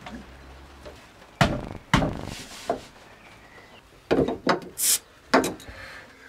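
Beer bottles being knocked against the VW T4 bus's metal bodywork to lever their caps off: about six separate sharp knocks and clacks, with a brief hiss about five seconds in.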